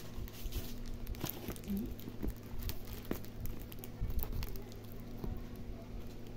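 Small scissors snipping through bubble wrap and plastic packaging, with irregular clicks and crinkling as the wrap is cut and handled.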